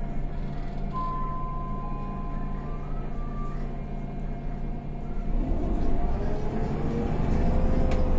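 Higer KLQ6129GQ2 city bus's diesel engine idling, heard from inside the cabin, then revving up steadily from about five seconds in as the bus pulls away, its pitch climbing and levelling off near the end. An electronic beep sounds about a second in and holds for about two seconds.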